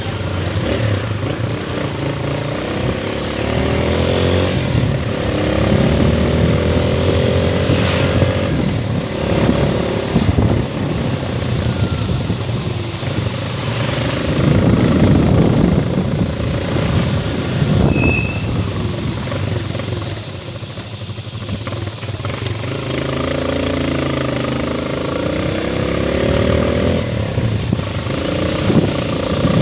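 Motor vehicle engine running while on the move, its pitch rising and falling repeatedly as it speeds up and slows down, with steady wind and road noise over it.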